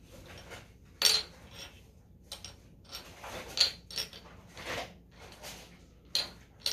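Scattered light clinks and knocks of glass soda bottles and a plastic cup being handled on a table, the loudest about a second in.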